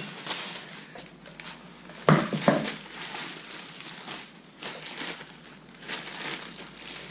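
Plastic and paper packaging rustling and crinkling as a part is unwrapped by hand, with a sharper clatter about two seconds in.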